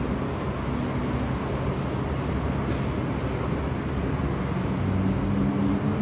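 Steady mechanical rumble and hiss of a sangak bakery's gas-fired oven and its extractor hood, with a low hum that grows a little stronger near the end.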